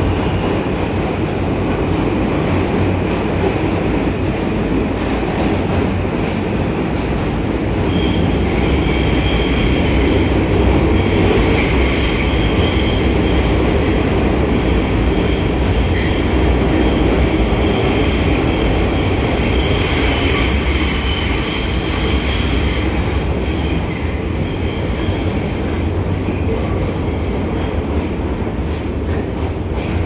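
R160A (Alstom-built) New York subway car running between stations, heard from inside the car with the air conditioning off: a steady loud rumble of wheels on rail. A high wheel squeal joins from about eight seconds in and fades out near the end.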